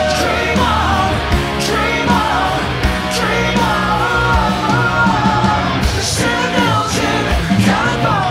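Rock band playing live and loud: drums beating steadily under electric guitars, with a lead line wavering in pitch over sustained low notes.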